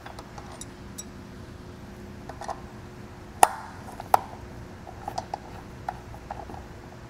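Light metallic clicks and taps of a 5 mm Allen key turning a bolt loose under a bike rack's front wheel tray. Two sharper clicks come about three and a half and four seconds in, with a few softer ones after.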